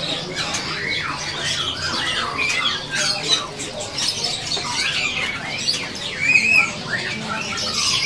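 Many caged songbirds calling at once: a dense chorus of short, overlapping chirps and calls, many of them rising and falling in pitch.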